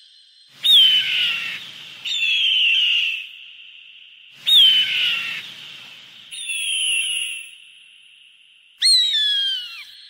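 A hawk giving five high, piercing screams. Each scream starts sharply and slides down in pitch over about a second, repeated roughly every two seconds.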